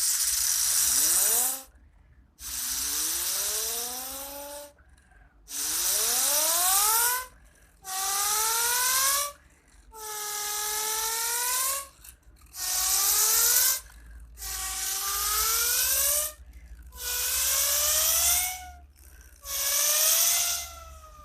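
Electronic engine-revving sound effect from a Cars toy car's sound chip, triggered again and again: about nine hissy bursts of a second or two each, each with a rising whine, the later ones rising and then falling.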